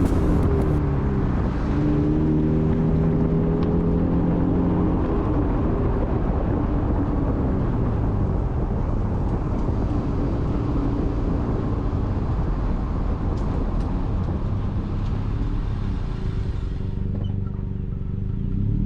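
A 2022 Honda Civic Sport driving, heard from beside the rear wheel: steady road, tyre and wind noise over the car's engine. The engine pitch rises and holds for a few seconds soon after the start, and climbs again near the end.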